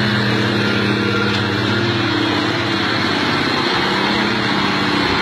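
Heavy dump truck's diesel engine pulling hard at steady revs as the loaded truck climbs a steep dirt slope.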